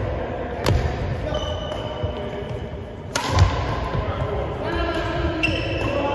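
Badminton rally on a wooden sports-hall floor: a few sharp racket strikes on the shuttlecock about two to three seconds apart, with sneakers squeaking and feet thudding on the floor between shots.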